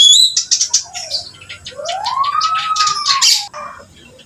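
Reed warbler (kerak basi) in full song: a fast run of short, scratchy notes, with a smoother lower note that rises and falls in the middle.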